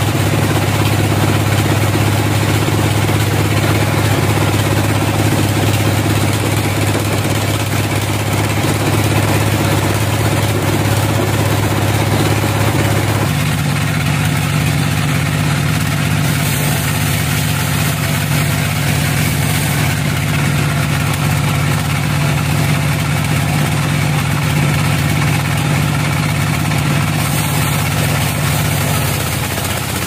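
Band sawmill machinery running steadily with a low, engine-like hum. A little before halfway the hum shifts up slightly in pitch and holds there.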